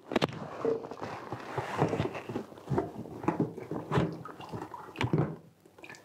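Rinse water from a portable washing machine's drain tube pouring into a plastic bucket, splashing in an uneven stream. The flow dips near the end.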